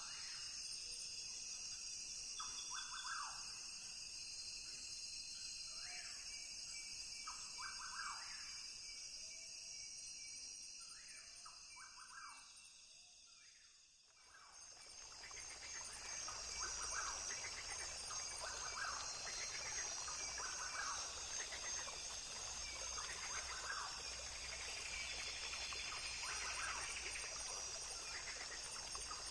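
Rainforest ambience: a steady, high insect chorus with short bird calls repeating every second or two. Just before the middle it fades down briefly, then swells back fuller and louder.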